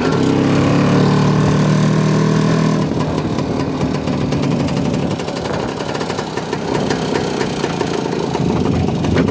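Pannónia motorcycle's two-stroke single-cylinder engine running under way with the sidecar attached, steady at first. About three seconds in, it drops to a lower, rougher and uneven beat as the throttle is eased off.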